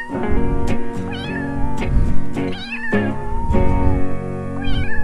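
Domestic cat meowing three or four times in short wavering calls over background music with sustained plucked notes.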